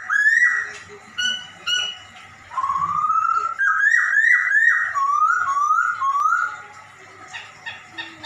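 A caged poksay hongkong laughingthrush calling in meow-like notes that slide up and down, mimicking a cat: a long note at the start, a few short ones, then a quick run of rising notes in the middle, trailing off into soft chips near the end.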